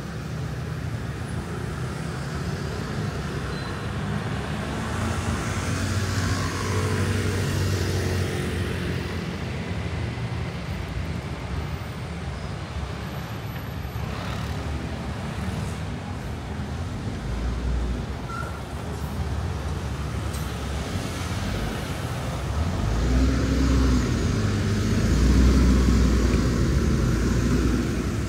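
Road traffic on a city street: a steady run of cars passing, their engine and tyre noise swelling about five seconds in and again, loudest, near the end.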